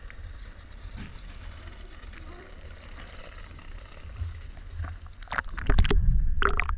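Pool water lapping and sloshing against a GoPro's waterproof housing at the surface, heard muffled through the housing as a steady low rumble. About five seconds in, louder splashing and sloshing as the camera dips under the water.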